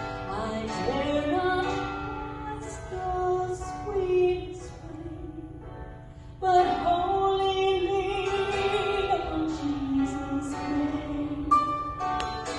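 A woman singing a slow song into a microphone over instrumental accompaniment, her voice swelling much louder about six and a half seconds in.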